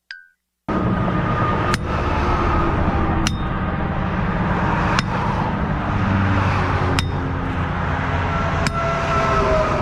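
Sledgehammer striking a steel U-channel sign post, five ringing metallic clangs about every 1.7 s, over steady traffic and wind noise.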